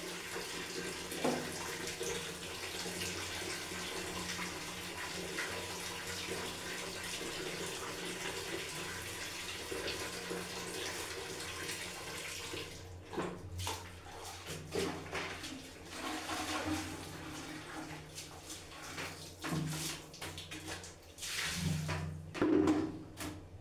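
Water running steadily in a bathroom. About halfway through it breaks into irregular splashes and gushes.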